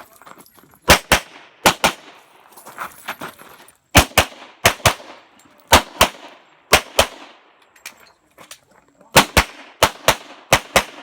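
Handgun fired in rapid pairs of shots, each pair about a fifth of a second apart, with short pauses between pairs as the shooter moves from target to target.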